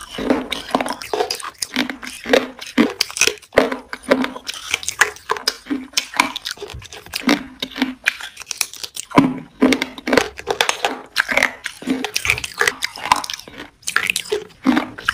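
Close-miked eating: a mouth biting and chewing food, with a dense, irregular run of wet crunches and crackles.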